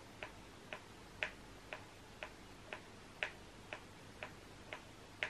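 Faint, steady click track of sharp ticks about twice a second, every fourth tick louder, like a metronome or a bare beat kept going for rapping over.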